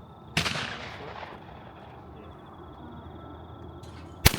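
Two shotgun shots at clay targets from a double-barrelled shotgun: one about a third of a second in, echoing for about a second, and a louder, sharper one right at the end.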